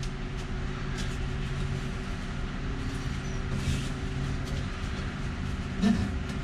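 Steady low mechanical hum, with faint rustles and light clicks as nylon harness webbing is pulled and threaded around a metal bar.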